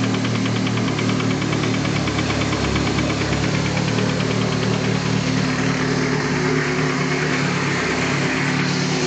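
Nissan SR20DET turbocharged four-cylinder engine running at idle with a fast, regular knock from the bottom end, clearest in the first half and fainter later on: rod knock, a failing connecting-rod bearing, as the owner takes it to be.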